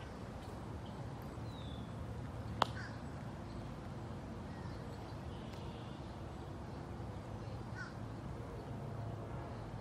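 Rolls-Royce Silver Cloud II's V8 engine running with a low, steady hum as the car moves off slowly, with a few faint bird calls over it. A single sharp click comes about two and a half seconds in.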